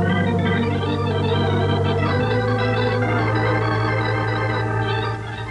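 Organ music bridge: sustained chords over a held bass note that shifts about two seconds in, softening near the end. It is a scene-change cue in a radio drama.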